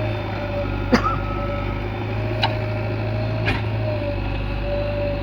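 Backhoe loader's diesel engine running steadily. Three sharp knocks sound over it, the first about a second in and two more over the next few seconds.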